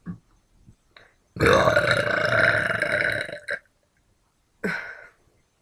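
A woman burping: one long, loud burp lasting about two seconds, with a shorter burst near the end.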